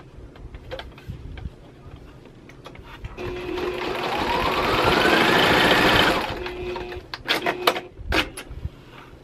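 Singer computerized sewing machine sewing a straight seam. Its motor speeds up with a rising whine over a fast, even stitching rattle for about three seconds and then stops suddenly. A few sharp clicks follow near the end.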